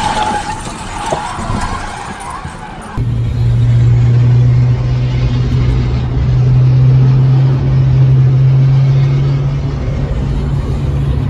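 A faint tyre squeal fading under dashcam road noise for the first three seconds, then a sudden cut to the loud, steady low drone of a car travelling at highway speed, heard from inside the cabin.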